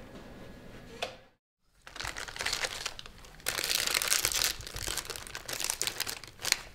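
A single click, then after a brief silence a plastic snack-chip bag crinkling in irregular bursts as it is handled and opened.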